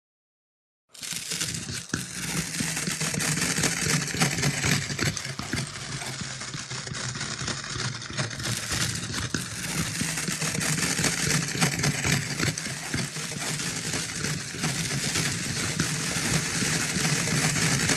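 A dense crackling, rustling noise over a low hum, starting abruptly out of silence about a second in and running on steadily.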